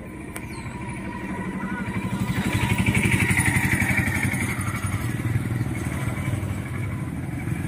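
A motor vehicle's engine passes by, getting louder to a peak about three seconds in and then slowly fading.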